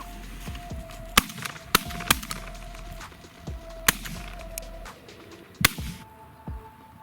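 Shotgun shots at waterfowl, about five sharp blasts spread irregularly, with background music underneath.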